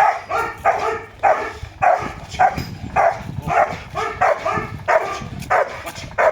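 Dog barking in a steady, rhythmic string, a little under two barks a second.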